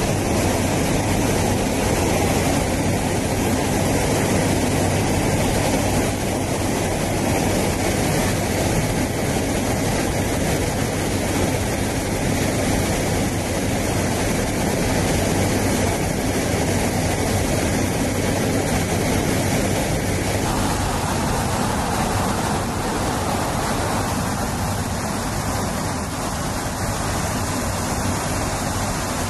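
Steady drone of aircraft engines and rushing air, heard from inside an aircraft in flight. The noise shifts in tone about twenty seconds in.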